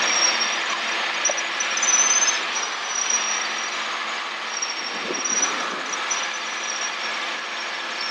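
Robinson R22 Beta II helicopter in cruise flight, heard inside the cockpit: a steady engine and rotor drone with an even hiss over it.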